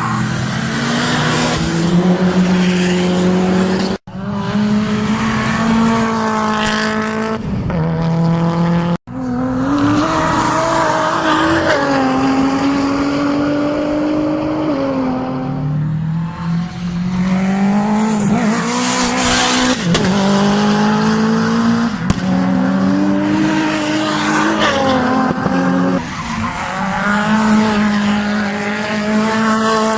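Cars being driven hard on a race circuit, engines revving up and dropping back again and again through gear changes. The sound breaks off abruptly about 4 and 9 seconds in, where short clips are cut together.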